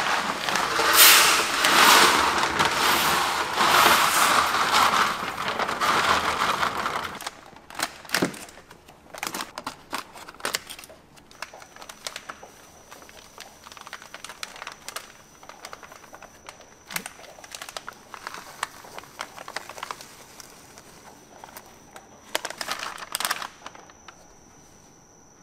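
Dry fish-feed pellets pouring out of a sack into a yellow drum mixer: a loud, dense rattling rush that stops about seven seconds in. After that come quieter crinkling of foil feed packets and scattered clicks as the packets are opened and emptied.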